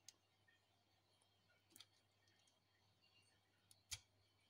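Faint clicks of plastic Lego pieces being handled and fitted together, a few separate clicks with the sharpest about four seconds in.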